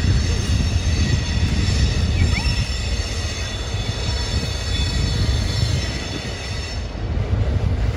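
Diesel freight locomotive running with a steady low rumble and engine hum as it shunts a rake of cement tank wagons back.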